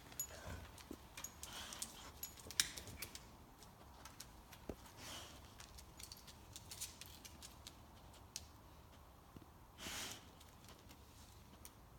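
A quiet room with scattered faint clicks and taps, and two short breathy sounds: a faint one about five seconds in and a louder one about ten seconds in.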